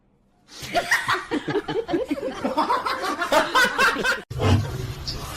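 A person laughing in quick, rapid bursts for several seconds, cut off abruptly near the end by a steady low hum.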